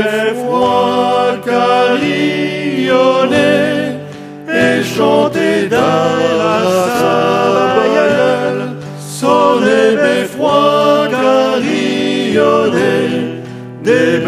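Male voices singing a French song in three-part harmony over acoustic guitar accompaniment, in phrases with short breaks between them.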